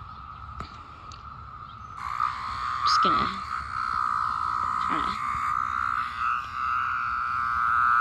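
Periodical cicada held in the hand giving its distress call: a loud, steady buzz that swells up about two seconds in, over a fainter buzz before it.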